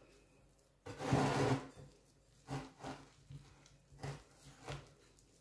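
Hands kneading crumbly butter and flour dough in a ceramic bowl: soft rubbing and scraping of dough and fingers against the bowl. One longer, louder scrape comes about a second in, followed by several short ones.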